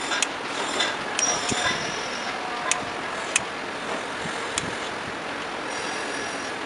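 About five sharp clicks and taps from aluminium pedestal-fan motor housing and plastic fittings being handled and pressed together, over a steady background hiss with a faint high squeak about a second in.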